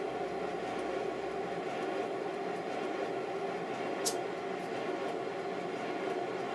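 A 5-inch gauge Stirling Single model locomotive running light, its driving wheels and motion turning in a steady run. A single sharp click about four seconds in.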